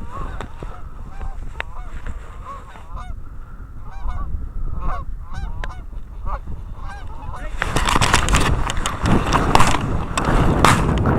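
Geese honking: many short calls in quick succession. Then, about seven seconds in, a loud rushing noise rises and covers them.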